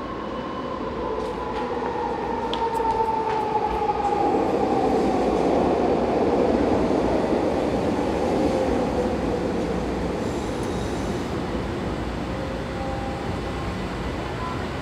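A SkyTrain pulling into an underground station, its motor whine falling in pitch as it brakes, growing loudest about halfway through and then easing off, with a few sharp clicks early on.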